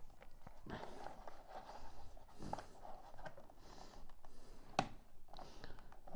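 Faint handling of a plastic toy horse and its flight stand: soft rustles and light plastic clicks, with one sharper click near the end.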